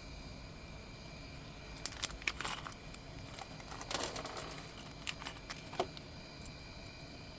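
Small clicks, light rattles and rustling from parts and tools being handled on a workbench, in three short clusters about two, four and five to six seconds in.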